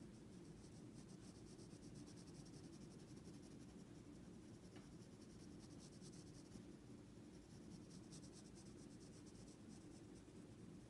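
Mechanical pencil lead scratching faintly on drawing paper in runs of quick, short strokes with brief pauses, as an outline is drawn along the bottom of a drawn eye.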